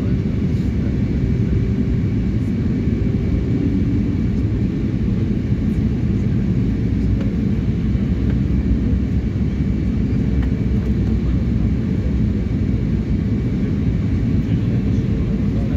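Steady cabin noise of a jet airliner in flight, heard from inside the passenger cabin: a deep, even rush of engine and airflow with a faint steady hum.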